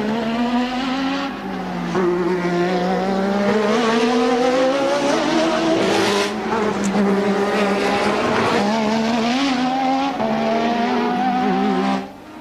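1988 Formula One race car engine at full racing load. Its pitch climbs and drops back repeatedly as it runs up through the gears and shifts. The sound falls away abruptly near the end.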